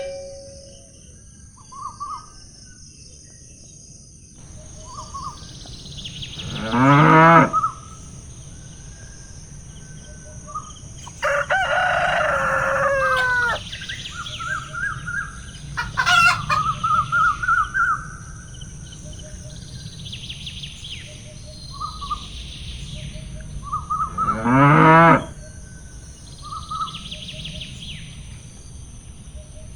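Farm animal sounds: a cow mooing twice, long apart, with a louder animal call in between and small birds chirping throughout.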